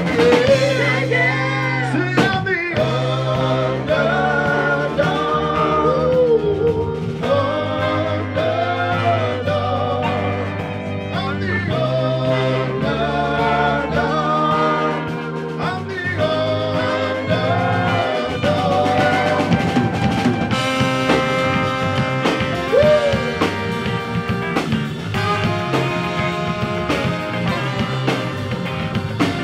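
Live rock band with a horn section playing. Drums, bass and keyboards keep a steady beat under a winding melodic line, which gives way to held brass-and-keys chords in the second half, with a trombone near the end.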